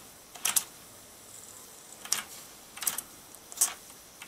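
Four short, sharp metallic clicks at an uneven pace, less than a second apart after the first, from a Mamod SP7 model steam engine being handled by hand. There is a faint steady hiss underneath.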